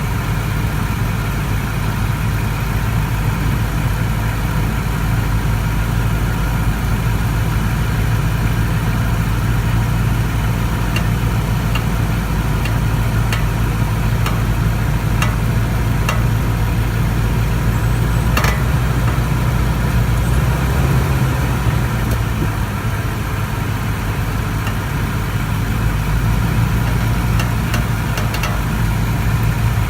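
2014 Toyota Tundra engine idling steadily, with a few faint, sharp pops scattered through, the clearest about two-thirds of the way in: the driver's-side popping noise the owner is chasing.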